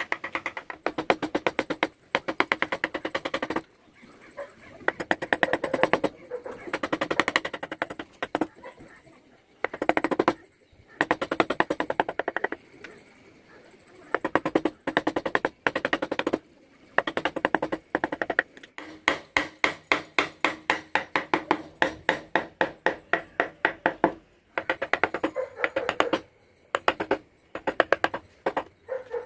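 Rapid runs of light taps driving a woodcarving chisel and gouge into wood, about five or six taps a second at the quickest, broken by short pauses.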